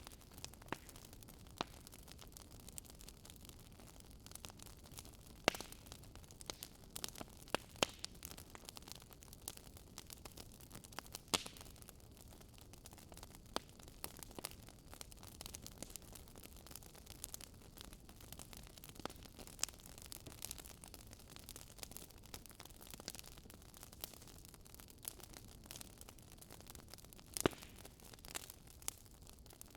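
Wood fire crackling in a fireplace: a soft steady hiss with irregular sharp pops and snaps, a few of them louder.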